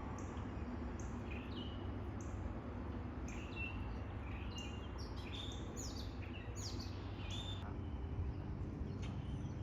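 Canada goose goslings peeping: many short, high calls that slide downward, overlapping and repeated, thinning out near the end, over a steady low background rumble.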